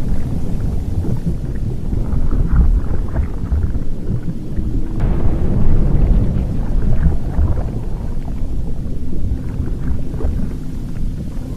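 Volcanic eruption ambience: a continuous deep rumble with crackling and popping over it, swelling a little about halfway through.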